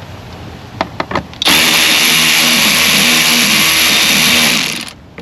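A few clicks, then a handheld power tool runs steadily for about three and a half seconds before stopping abruptly, likely while fasteners on the air intake hose are being loosened.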